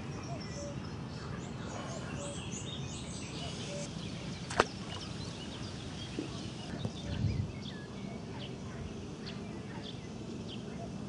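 Small birds chirping in short high calls over a steady low outdoor background, with a single sharp click about four and a half seconds in and a softer low thump a few seconds later.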